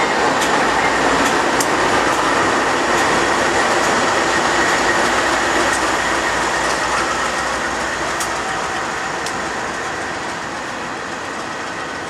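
BNSF diesel freight train of empty intermodal cars passing close by: a steady loud noise of locomotives, wheels and cars on the rails, with a few light clacks. It fades gradually over the second half as the locomotives draw away.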